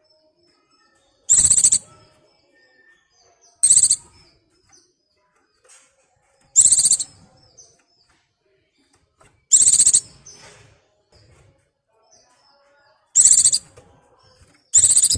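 Pleci (white-eye) in breeding condition calling: loud half-second bursts of rapid high notes, about six of them every two to three seconds, with faint short chirps in between.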